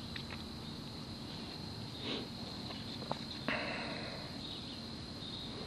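Garden hose running quietly into a plastic bucket, with a steady high insect drone behind it; about three and a half seconds in a brief louder rush of water as the brass hose valve is handled.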